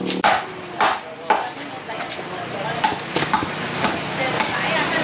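A steel cleaver knocking on a thick wooden chopping block while a large fish is cut up: three sharp strikes in the first second and a half, then lighter, quicker knocks and scraping.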